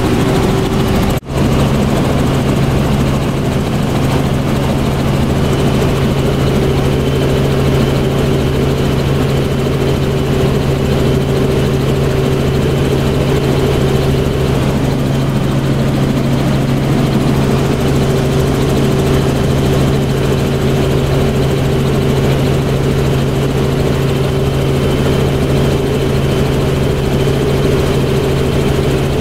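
Helicopter in flight, heard from inside the cabin: the engine and rotor make a constant, even drone with a steady low hum. A split-second gap in the sound about a second in.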